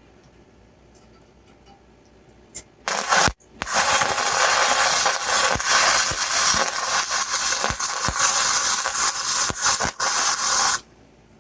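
Wire-feed welder arc crackling as a bead is laid on thin exhaust tubing, starting about three seconds in, with a short stop right after the first strike, then running about seven seconds before cutting off.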